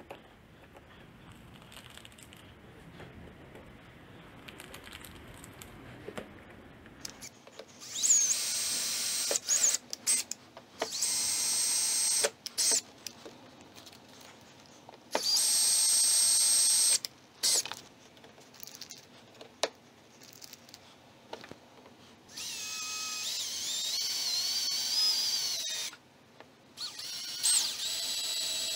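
Cordless drill running in about five short bursts of high-pitched whine. The longest burst, about three-quarters of the way through, wavers in pitch. Before the first run there are a few seconds of quiet handling.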